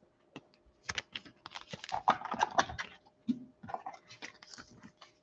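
Trading cards and their plastic holders being handled: a quick run of small clicks, scrapes and rustles, busiest from about a second to three seconds in, with a shorter flurry near four seconds.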